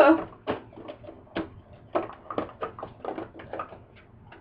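A thin clear plastic food container being handled and packed away: a run of short crinkles and clicks, loudest at the very start.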